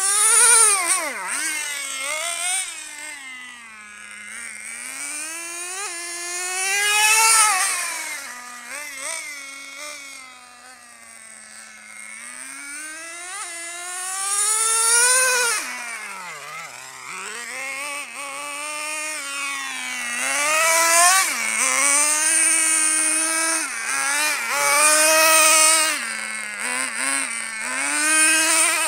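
HPI RS4 radio-controlled car being driven hard, its high-pitched motor note rising and falling over and over as it accelerates, slows and turns. The loudest surges come about 7 s and 15 s in and through the last third.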